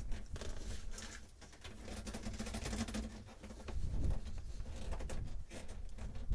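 Irregular rustling and small clicks of old boat wiring and connectors being handled and pulled loose.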